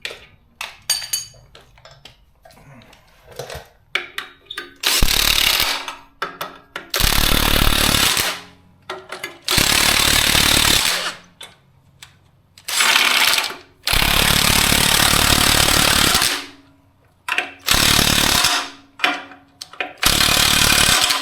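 Impact wrench run in about seven bursts of one to two seconds each, driving nuts home to bolt the engine to the stand, with small metal clicks and taps between bursts.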